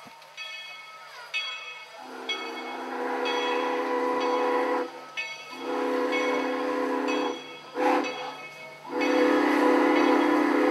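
Train whistle blowing three long blasts of a chord with a hiss of steam or air, the third still sounding at the end.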